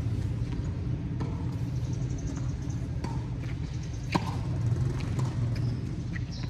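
A steady low rumble, with a sharp knock of a tennis ball being struck about four seconds in and a few fainter knocks spaced a second or two apart.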